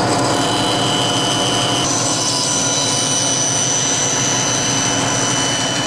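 Laguna 18-inch band saw running steadily while its blade cuts a curve through a plywood panel, a continuous motor hum with a high steady whine on top.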